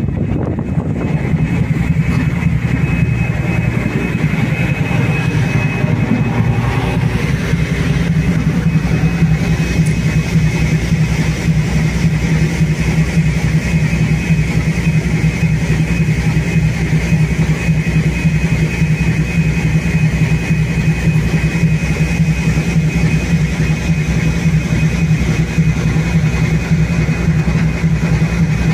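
A ship's engine running steadily under way, a continuous low drone with a constant high whine above it.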